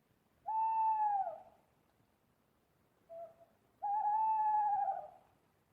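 Owl hooting: two long hoots of about a second each, the first dropping in pitch at its end, with a short soft note just before the second.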